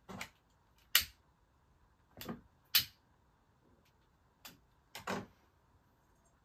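Six or so sharp clicks and short scrapes, irregularly spaced, as a candle on a small home altar is lit and things on the altar are handled.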